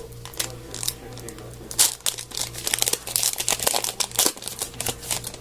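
Trading cards and their packaging being handled: irregular crinkling and rustling with sharp little snaps, the loudest about two seconds in.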